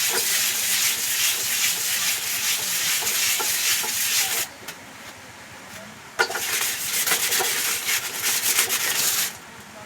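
Sandpaper rubbed by hand over a part of an old electric fan in quick back-and-forth strokes. It sands for about four seconds, pauses briefly, then sands again until near the end.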